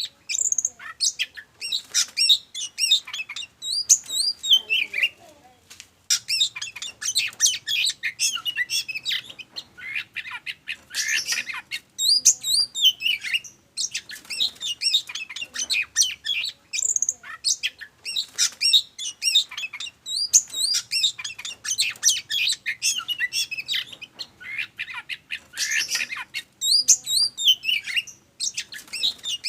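Oriental magpie-robin (kacer) in excited display song, a fast, varied run of whistles, chirps and harsh notes in quick phrases with brief pauses between them.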